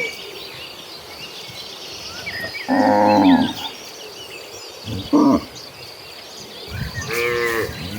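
Cows mooing in a herd: a loud moo about three seconds in, a short one about two seconds later, and another beginning near the end. Small birds chirp and insects buzz in the background throughout.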